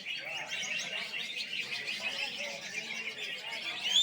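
Many caged green leafbirds (cucak ijo) singing over one another in a dense, continuous tangle of high chirps and warbles. Near the end a loud whistle rises and then holds one steady note.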